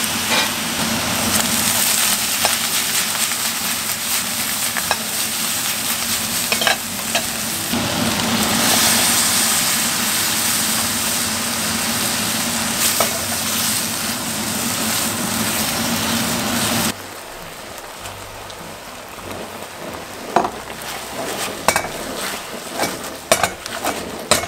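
Chopped bell pepper, onion and pineapple sizzling hard as they fry and are stirred in a pan. About two-thirds of the way through, the sizzle drops abruptly to a quieter frying sound, broken by the clicks and scrapes of a spatula against the pan.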